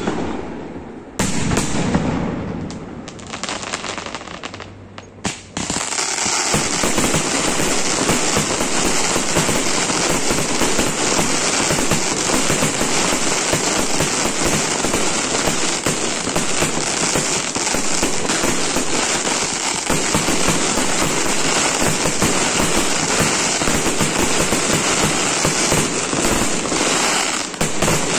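Aerial fireworks display: a loud shell burst about a second in, dying away with scattered bangs, then from about six seconds a dense, continuous barrage of rapid bangs and crackling that dips briefly near the end.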